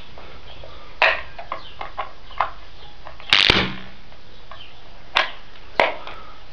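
Headphone driver wired to 230 V AC mains, giving a few sharp pops and crackles at uneven intervals, the loudest a burst about three seconds in with a brief buzz under it.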